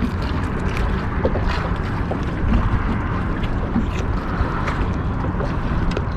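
Wind buffeting the microphone on a boat on open water, a steady low rumble with a few faint knocks.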